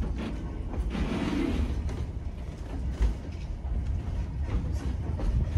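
Scenic railway passenger carriage running on the line: a steady low rumble with scattered creaks and clicks from the carriage.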